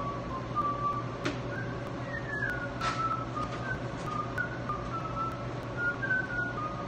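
A person whistling a tune, a single wavering note that steps and slides between pitches, over a steady low hum with a few light knocks.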